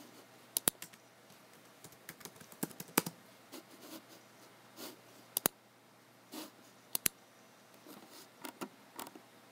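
Irregular, unhurried keystrokes on a computer keyboard, with a few sharp clicks coming in quick pairs.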